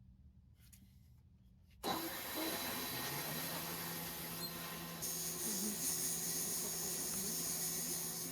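Bandknife leather splitter running on its new three-phase motor: a steady machine hum and whirring hiss that come in suddenly about two seconds in. About five seconds in, a brighter hiss joins.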